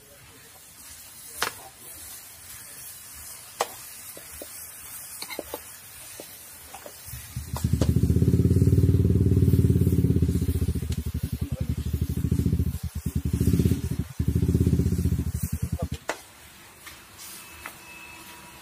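Chicken frying in a pan over a wood fire: a faint sizzle, with a few sharp clicks of the spatula against the pan. About seven seconds in, a loud, low, fast-pulsing engine rumble takes over for about eight seconds. It drops out briefly twice, then stops.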